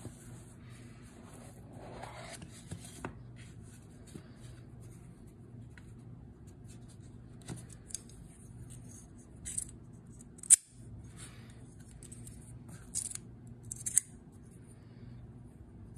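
Unboxing handling noise: the cardboard box and foam insert rubbing and scraping, with several short sharp clicks from the metal Xikar V-cut cigar cutter being handled, the loudest about ten and a half seconds in.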